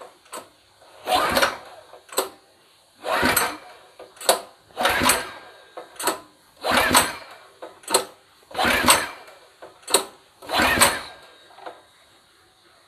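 New 200 cc small engine being pull-started on its recoil starter with the choke closed: six pulls about two seconds apart, each a short whirring rush with a sharp click between pulls. The engine turns over but does not fire.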